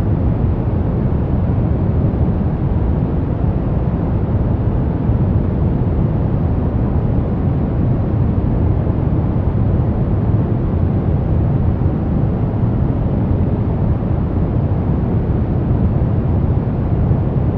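Deep brown noise: a steady, unbroken hiss weighted heavily toward the bass, fading off toward the treble, with no changes in level.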